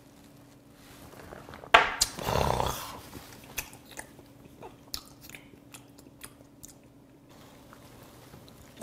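A shot glass knocks sharply down on a wooden table, followed by a short breathy exhale after the shot. Then comes the quiet, wet clicking of chewing a mouthful of raw filefish.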